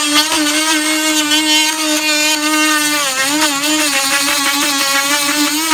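Oscillating multi-tool running with a steady whine. From about halfway on its pitch dips and wavers as the blade takes load, cutting through the nails that hold a 2x6 joist to a lath-and-plaster ceiling.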